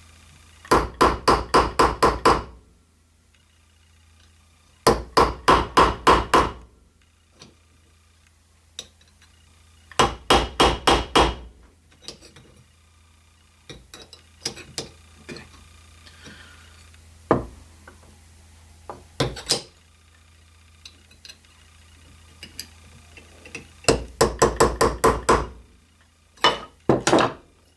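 Hammer striking a homemade rivet-setting tool to peen a copper rivet. The blows come in quick runs of about seven, four or five a second, with single lighter taps between the runs.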